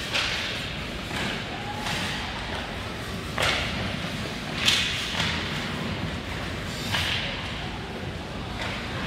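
Ice hockey play: skate blades scraping and carving the ice while sticks and pucks make a handful of sharp clacks and hits. The loudest hit comes a little under five seconds in.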